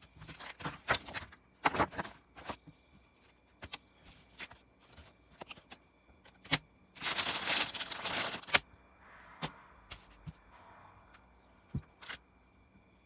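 Handling noise: scattered clicks and rustling, with a denser rustle about seven seconds in that lasts a second and a half.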